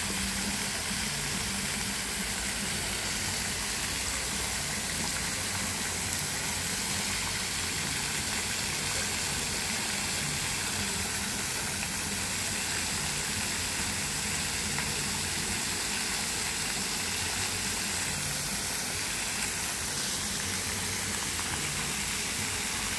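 Park pond fountain jets spraying and splashing back into the water: a steady, even rushing hiss, with a low rumble underneath.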